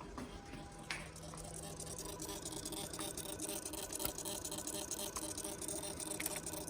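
Suzuki GSX-R motorcycle making rapid, irregular clicks over a steady hum, louder from about two seconds in. The owner traces the clicking to the throttle body area, where the throttle position sensor and secondary throttle position sensor sit.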